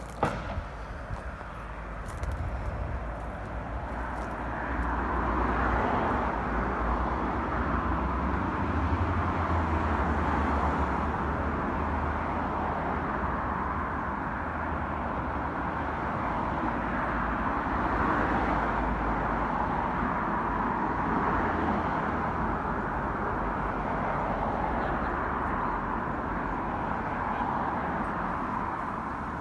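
Steady outdoor background noise with a low, unsteady rumble underneath, and a single sharp knock right at the start.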